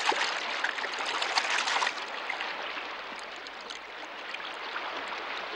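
Running water in a flooded tunnel, a stream-like trickling and splashing that is busier for about the first two seconds, then steadier.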